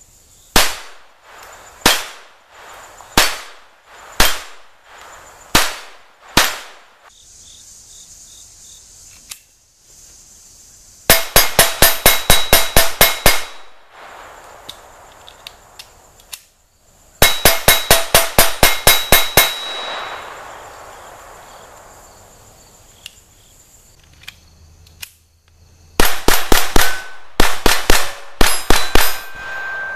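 Six shots from a Smith & Wesson M&P 22 Compact .22 LR pistol, about a second apart, then three strings of rapid gunfire of a dozen or more shots each, at about five or six shots a second. A steel plate target rings briefly after some of the shots.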